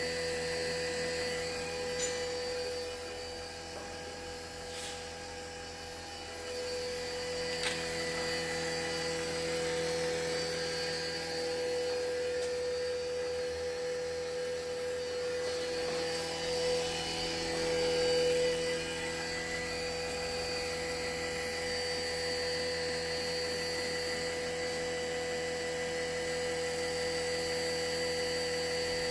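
A small electric motor running steadily with a whining tone and a few faint clicks.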